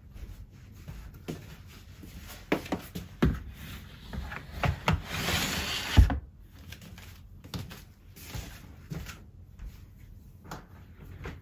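White plastic stacking storage baskets being handled and set on a wooden shelf: a few light plastic knocks, then a scraping slide about five seconds in that ends in a solid thump as the unit is pushed into place, followed by a few faint clicks.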